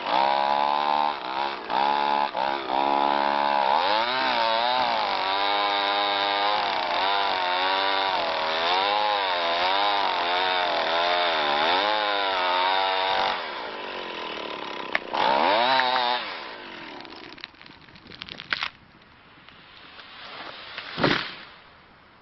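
Chainsaw cutting into the trunk of a tall larch, its engine pitch rising and falling as it works in the cut. About 13 seconds in it drops back, revs once briefly and stops. Scattered cracking follows, then a single loud crash near the end as the felled tree hits the ground.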